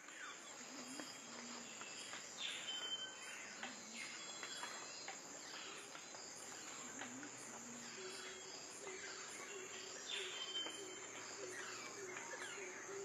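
Faint outdoor wildlife sound: a steady high-pitched insect trill, with birds calling over it in repeated falling, sweeping calls and short whistles.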